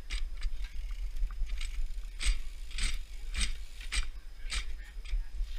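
Shoe scuffing and scraping on a dirt trail as a rider scoots a mountain bike forward with one foot down, a short scrape about every half second, over a low steady wind rumble on the helmet-camera mic.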